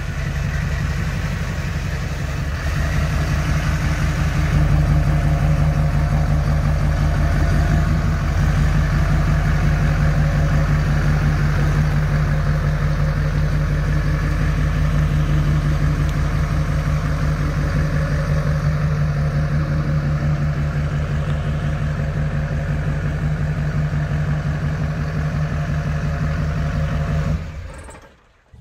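Duramax V8 turbo-diesel engine of a lifted pickup running at low speed as the truck drives slowly, a steady low engine note that grows a little louder in the first few seconds and cuts off about a second before the end.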